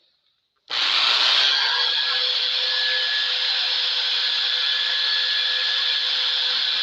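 A power tool switched on just under a second in and running steadily at full speed, a loud even whirring hiss, brought in to strip thick paint from the hatchet head.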